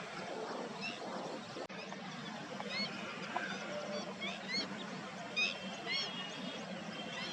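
Small birds chirping with many short, high, quick upward-sweeping notes, scattered throughout, over a steady background hum.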